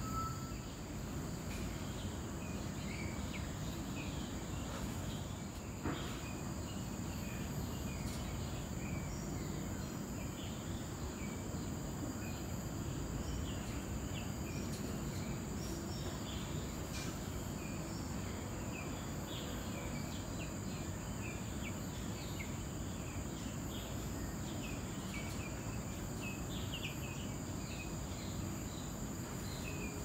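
Walk-through aviary ambience: a steady high-pitched insect-like hum over a low rumble, with many short bird chirps scattered throughout. There is one sharp click about six seconds in.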